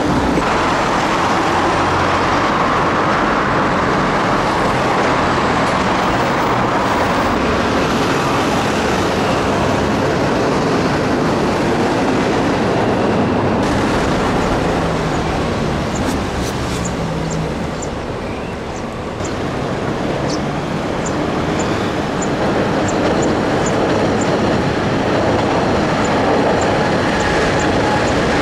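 Steady street traffic noise, with an orange JR Osaka Loop Line train heard on the elevated line near the end.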